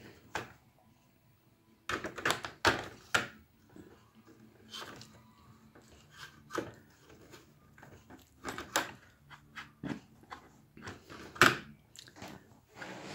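Plastic airbrush paint bottles clicking and knocking against the plastic filament-spool tiers of a paint caddy as they are handled and the caddy is turned, in scattered irregular knocks with the loudest about two thirds of the way in.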